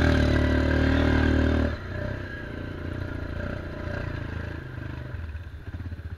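ATV engine revved high for a little under two seconds, as the rider warns he may splash mud, then dropping to a lower, uneven run as the quad moves off.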